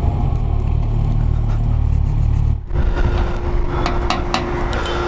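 Kawasaki Versys 1000's inline-four engine running at road speed, with a steady low rumble and wind noise. After a sudden cut about two and a half seconds in, a gas-station fuel pump hums steadily with several sharp clicks as the tank is filled.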